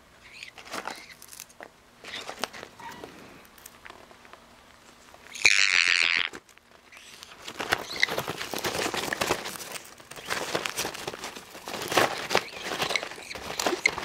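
A sun conure rummaging inside a paper microwave-popcorn bag: the paper crinkles and the popcorn rustles, sparsely at first and busily in the second half. Near the middle comes one loud, harsh squawk lasting about a second.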